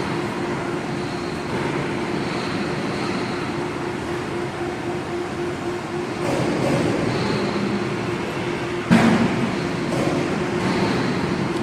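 Steady machinery hum with a constant tone, and a single sharp clunk about nine seconds in.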